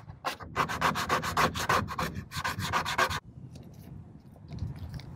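A plastic card scraped hard back and forth over a vinyl registration-number decal and its transfer tape on a kayak's hull, squeegeeing it down so it sticks: a quick run of rasping strokes, about five a second, that stops abruptly about three seconds in.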